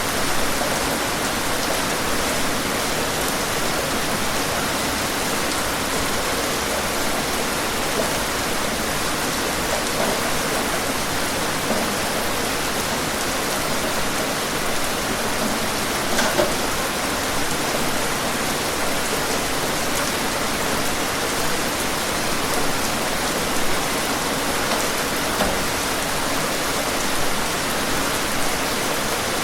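Steady rain falling, a constant hiss with scattered individual drops hitting a surface.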